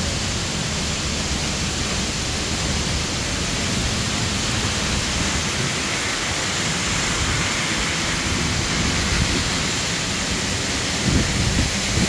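Waterfall heard from right behind the falling curtain of water: a loud, steady rush of water. A couple of brief low bumps come near the end.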